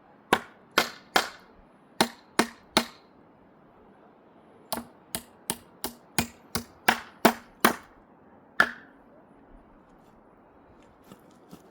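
Hammer driving a nail into wood: sixteen sharp strikes, in runs of three, three and nine at about two or three a second, then a single last blow.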